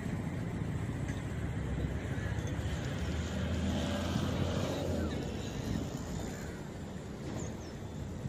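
A vehicle engine running with a steady low drone, swelling a little around the middle and easing off toward the end.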